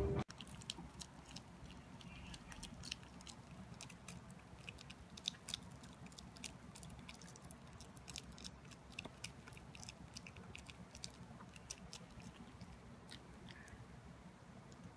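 A dog chewing, faint: many small, irregular clicks and crunches.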